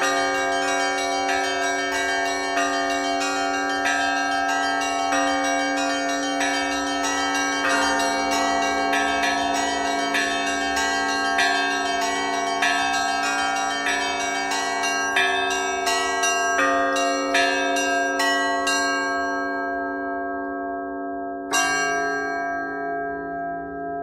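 Russian Orthodox church bells rung by hand in a fast, dense peal of many bells struck together. The quick strokes stop about three-quarters of the way through and the bells hum as they die away, with one last deep stroke a few seconds before the end.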